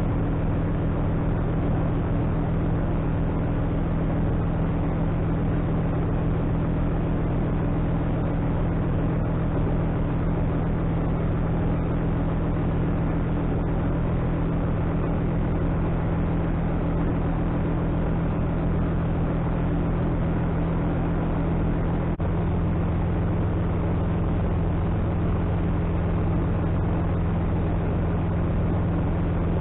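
Atec Zephyr light aircraft's engine and propeller running steadily in cruise flight, heard from inside the cockpit over a steady rush of airflow.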